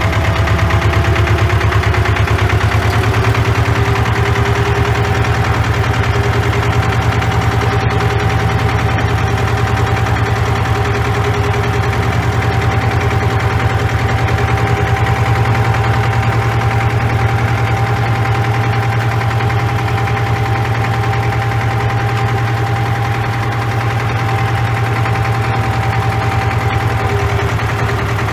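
Ursus C-330 tractor's two-cylinder diesel engine running steadily while the tractor drives slowly, heard from inside the cab. A steady whine rides over the engine's beat, coming in about three seconds in and fading near the end.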